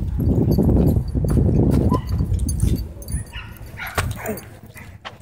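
Dogs playing rough, growling and yipping as they chase each other. The growling is loudest in the first three seconds, with a short yelp about four seconds in.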